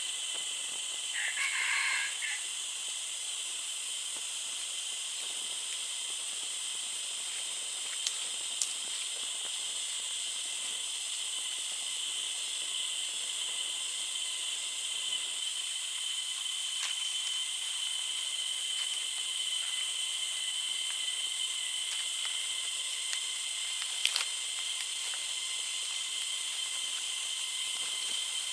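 Steady, high-pitched insect chorus droning in the forest, with a short call about a second in and a few sharp ticks.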